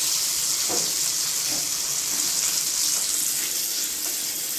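Bombay duck (bombil) fillets shallow-frying in oil in a flat pan: a steady sizzle, with a couple of faint scrapes of a metal spatula in the first two seconds.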